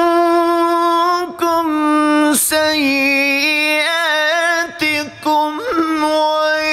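A man's voice in melodic Quran recitation (tilawat), holding long, high notes with wavering ornaments and a few brief breaks between them.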